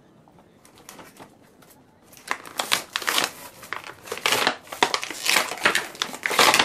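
Plastic packaging crinkling and crumpling as it is handled, in a dense run of irregular rustles that starts about two seconds in and grows louder near the end.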